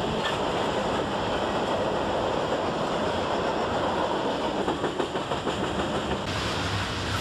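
N-scale model double-stack container train rolling past on a curve: a steady rolling rumble of the cars' wheels on the track, with a run of rapid clicks over rail joints past the middle.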